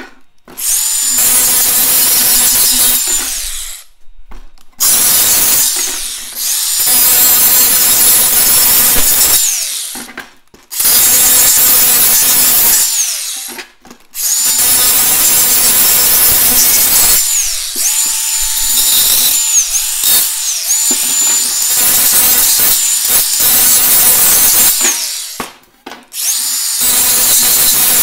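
DeWalt 20V cordless angle grinder cleaning up the freshly cut edges of a painted sheet-metal patch plate. It runs in passes of a few seconds each with short stops between, and its high whine dips now and then.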